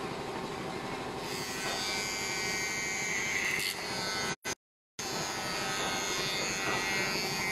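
Electric hair clipper running with a steady buzz while shaving a head; the sound cuts out completely for about half a second a little past the middle.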